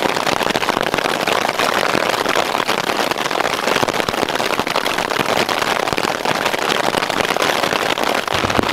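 Hail and heavy rain pelting a tarp overhead: a loud, steady clatter of countless small hits, with no let-up.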